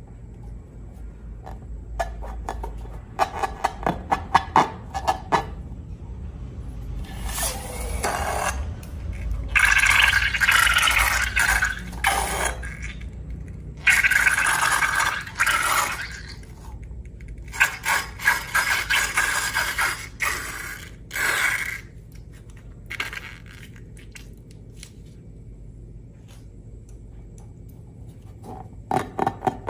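Scraping and clicking from handling slime materials, coming in spells of a few seconds: quick runs of clicks early on and near the end, and longer scraping spells in the middle.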